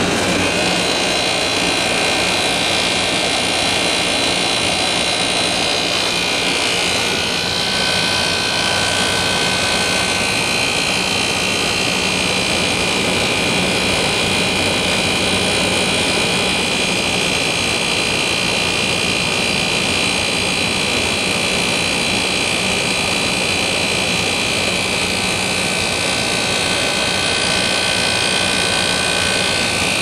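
1988 Carrier International Series 27,500 BTU through-the-wall air conditioner running on cooling, heard close at its outdoor side: a steady rush of condenser airflow with a constant hum from its Toshiba rotary compressor. The unit is running normally and already blowing cold.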